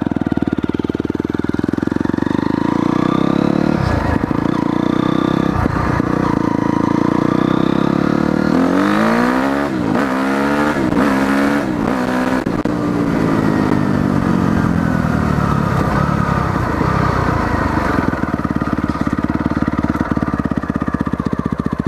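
Honda CRF motorcycle engine running while being ridden, its revs rising and falling several times midway. The rider is listening for an unidentified engine noise that he notices mostly at high speed and when accelerating.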